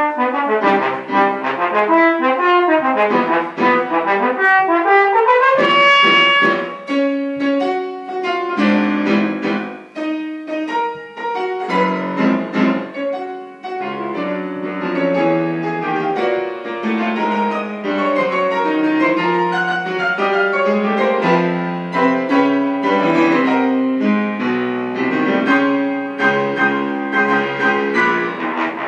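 Slide trombone and piano playing a trombone concertino: lyrical trombone phrases over piano accompaniment, with a rising trombone line about six seconds in. The trombone rests for a stretch around the middle while the piano plays on, then comes back in near the end.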